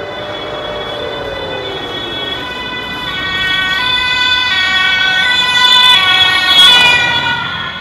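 Emergency vehicle's two-tone siren alternating between a high and a low note, really loud as it passes close by. It grows louder to a peak about six to seven seconds in, then drops away near the end.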